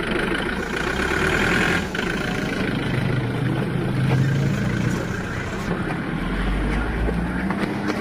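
An ambulance van's engine idling steadily.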